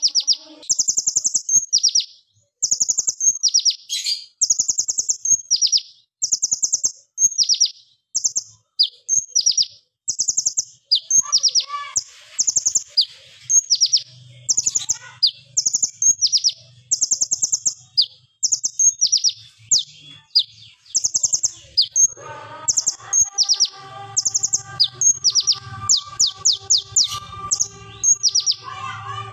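Male van Hasselt's sunbird (kolibri ninja) singing a fast, sharp, rapid-fire song of high downslurred notes, delivered in quick bursts with hardly a pause.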